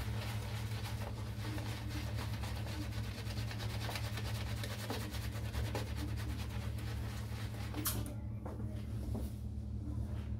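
Shaving brush being worked briskly through shaving-soap lather: a continuous wet, fast crackling swish. It stops abruptly about eight seconds in, just after a sharp click.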